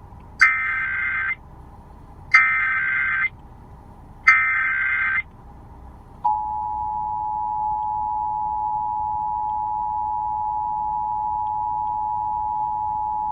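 Emergency Alert System tones: three one-second bursts of SAME digital header data, a buzzing warble of fast-switching tones, repeated about a second apart. About six seconds in, the steady two-tone attention signal (853 Hz and 960 Hz sounding together) starts and holds.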